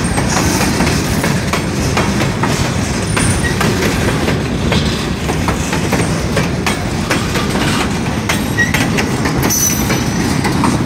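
Freight train cars rolling past at close range: a steady rumble of steel wheels on rail with the clickety-clack of wheels crossing rail joints, and a brief high squeal near the end.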